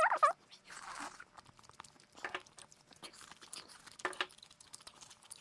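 Soft close-up chewing and biting of bone marrow. The eating sounds are wet and clicky, with two sharper bites or slurps about two and four seconds in.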